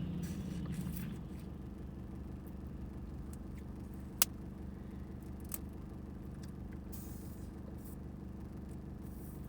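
Car engine idling with a steady low hum, heard from inside the car, with one sharp click about four seconds in.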